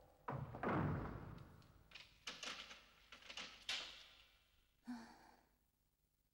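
Heavy wooden cell door being worked: a loud thud about half a second in that fades over a second, then several short clatters. A brief sigh follows near five seconds.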